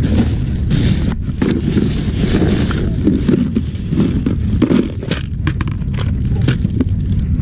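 Close handling noises of fishing tackle: a plastic bag rustling and a plastic tackle box being opened and rummaged through, with many short clicks and rustles over a steady low rumble.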